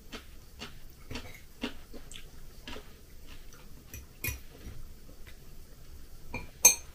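A metal fork clicking and scraping on a glass plate as food is pulled apart, with small eating clicks in between. Two sharper clinks come about four and six and a half seconds in.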